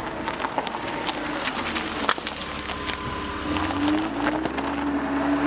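An engine running, with a low hum and a tone that slides up and down in pitch in the second half, and scattered clicks throughout.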